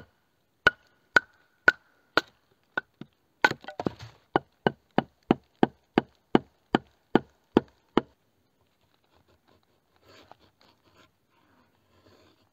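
Wood being chopped with a blade: a run of about twenty sharp blows, roughly two a second, that stop about eight seconds in. The first few blows leave a short ring.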